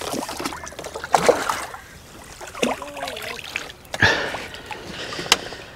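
Water splashing and trickling in irregular bursts, with a few sharp knocks, the strongest about four seconds in.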